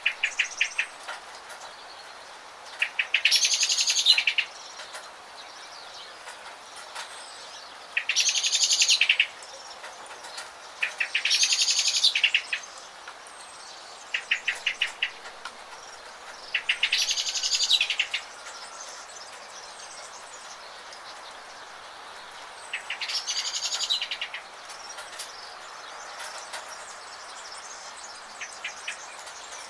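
A songbird singing short, rapidly trilled phrases about a second long, repeated every few seconds, a few of them led by a string of quick notes. Under it runs a steady hiss of rain.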